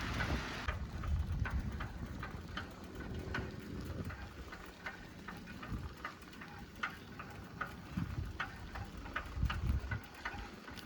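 Bicycle in motion: light, irregular clicks and rattles, a few a second, over a low rumble of wind on the microphone.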